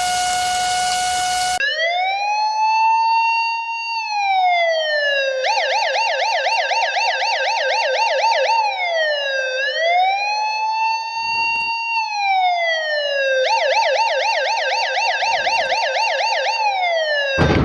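Electronic emergency-vehicle siren alternating a slow wail, rising, holding and falling over a few seconds, with stretches of fast yelp warbling about four times a second. For the first second and a half, before the siren starts, there is a different steady held tone over a hiss.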